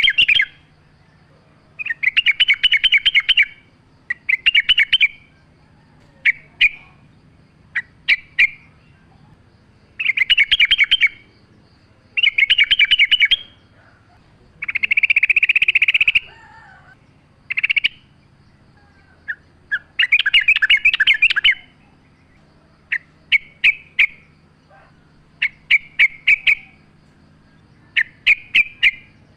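Yellow-vented bulbul (trucukan) singing: loud bursts of fast, rapid-fire chattering notes, each lasting one to two seconds and repeated every few seconds, with short clipped two- or three-note calls in between.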